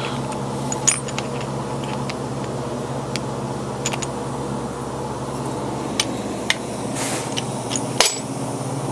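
Steady machine hum with scattered small metallic clinks and taps as small end mill cutters are handled and set down. A sharper clink comes about eight seconds in, and the hum's tone shifts slightly after it.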